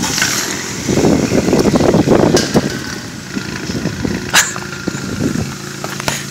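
Audi A4 1.8T's turbocharged four-cylinder engine running through a straight-piped exhaust. Its note swells loudly for a couple of seconds, then settles into a steady idle.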